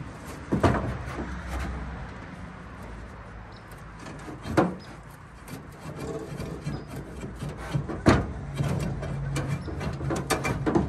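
Cylinder head of a 1935 International C-30 truck engine being rocked back and forth on its rusty block, metal grating and scraping, with three sharp clunks: about a second in, midway and near the end. The head is working loose from the seized engine.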